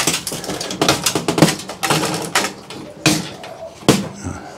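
Quick irregular clicks, knocks and clatter of hand tools and monitor parts being handled during dismantling, with one sharper knock near the end.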